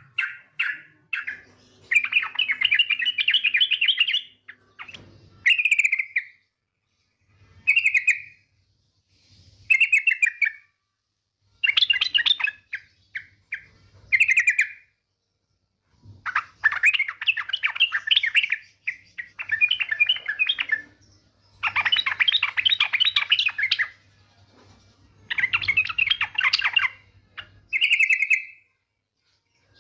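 Female yellow-vented bulbul (trucukan) calling: fast rattling chatter in bursts of two to three seconds, alternating with short bubbly phrases and brief pauses.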